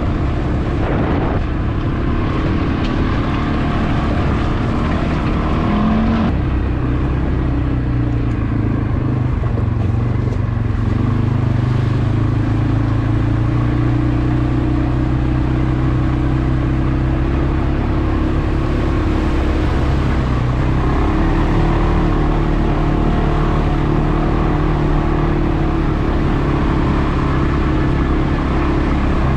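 CFmoto CForce 520 ATV's single-cylinder engine running while riding, its pitch shifting as the revs change about six seconds in and again about twenty-one seconds in.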